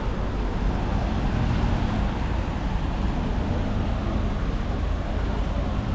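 Steady urban road traffic noise, an even wash of sound with a heavy low rumble.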